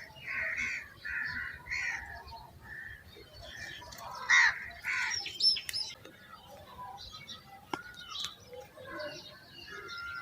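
Birds chirping and calling in short, repeated notes, with one louder call about four seconds in and a few whistled notes just after it.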